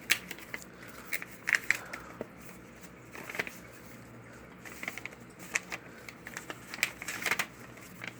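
Packaging and a greeting card being handled: irregular rustles, crinkles and light clicks, in two busier clusters.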